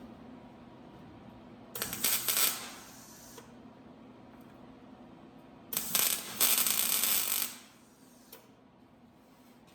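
Two bursts of a metalworking tool on sheet metal, a short one about two seconds in and a longer one of about two seconds a little later, each a dense crackling rattle over a low steady hum.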